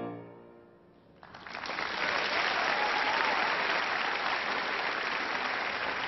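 The last chord of a mixed choir fades away, and after a brief hush an audience breaks into steady applause about a second in.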